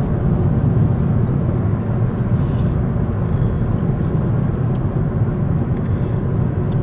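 Steady low road and engine noise of a car cruising on a motorway, heard from inside the cabin.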